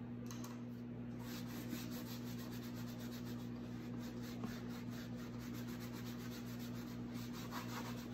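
Cloth rag rubbing dark wax back off a painted book cover in quick repeated strokes, over a steady low hum.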